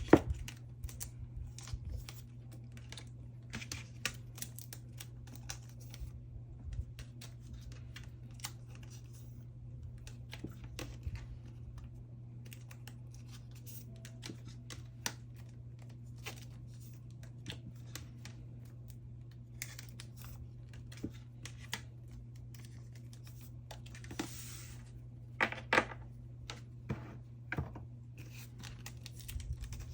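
Photocards being slid out of their plastic sleeves: irregular crinkling and rustling of thin plastic with light clicks and taps of card on a desk, the sharpest clicks at the very start and about 25 seconds in. A steady low hum runs underneath.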